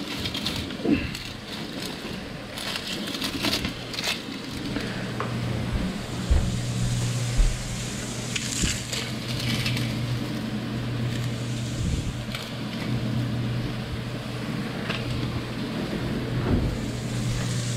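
Dry onion skin crackling as an onion is peeled by hand, with scattered clicks and knocks of handling and a kitchen drawer, over a steady low hum.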